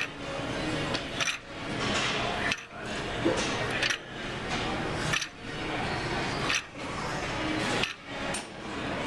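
Plate-loaded ab machine worked through repetitions: the lever arm and iron weight plates clink and rattle in a steady cycle, about one repetition every second and a quarter, each ending in a short clack.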